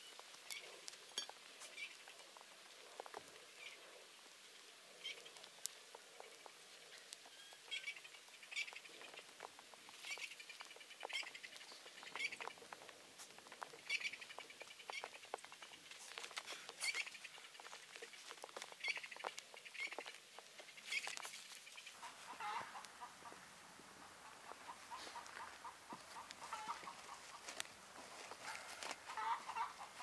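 Faint, irregular crackling and popping of a small campfire of dry twigs as it catches. In the last several seconds, footsteps crunch in snow beside it.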